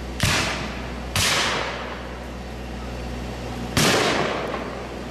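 Three black-powder musket shots fired with blanks. Two come about a second apart and a third follows after a pause of over two seconds, each a sharp crack with a fading tail.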